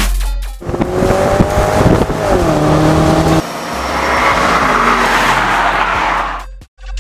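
Straight-piped BMW 650i V8 exhaust. It first accelerates hard, with the revs climbing and then dropping in a step about two seconds in, as at a gear change. After a cut, the car approaches and passes by, its exhaust noise swelling and then fading away.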